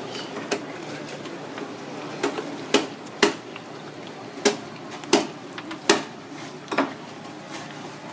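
Irregular sharp knocks and clatter, about eight in a few seconds, over a steady background hum.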